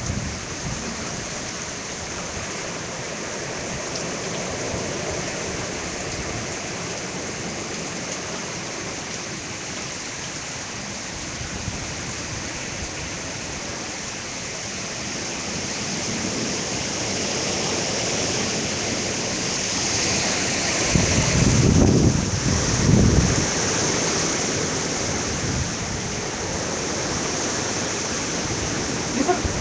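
Heavy rain pouring down steadily, growing heavier past the halfway mark, with a low rumble about two-thirds of the way through.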